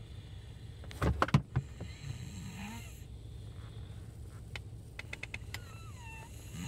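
Snoring, loudest in a short, loud snore about a second in, then softer breathing with a thin falling whistle near the end.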